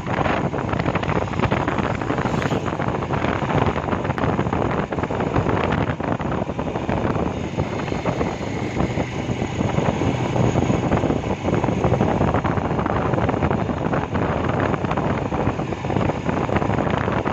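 Riding on a motorcycle: steady wind rushing over the microphone, mixed with the bike's running noise.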